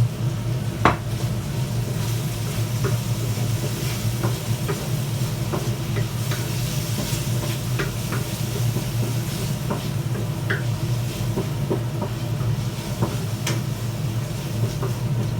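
Pork cubes frying in a pan with onion, garlic and ginger, sizzling while a spatula stirs, with scattered clicks and scrapes against the pan, the sharpest about a second in. A steady low hum runs underneath.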